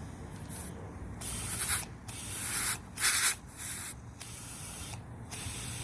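Hand spray bottle of soap-and-water mix squirted repeatedly onto a scooter tire's bead as a mounting lubricant, a string of short hissing sprays.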